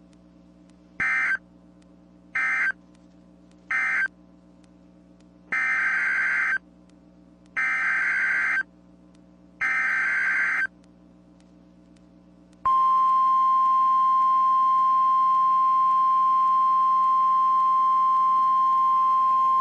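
EAS/SAME digital data bursts on NOAA Weather Radio: three short end-of-message bursts closing the severe thunderstorm warning, then three longer header bursts that code the tornado warning. After them the steady 1050 Hz NOAA Weather Radio warning alarm tone starts and holds.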